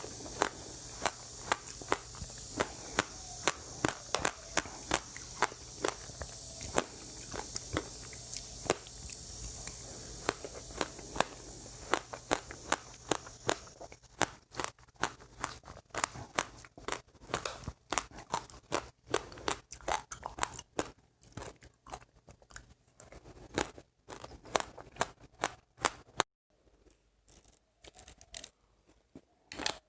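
Close-up chewing of seeds: sharp crunching clicks, about two to three a second, as the seeds crack between the teeth. A steady hiss sits under the first half and drops away about halfway through.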